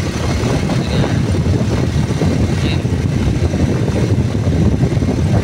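Steady rumble of a moving vehicle, heavy wind buffeting the microphone.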